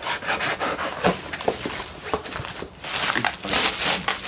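Cardboard parcel opened by hand: irregular scraping and rustling of the box flaps, then bubble wrap crinkling as it is pulled out, the densest rustle about three and a half seconds in.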